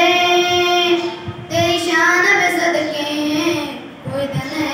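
A boy singing a Hindi patriotic song solo into a microphone, in long held notes. He pauses briefly for breath about a second and a half in and again near the end.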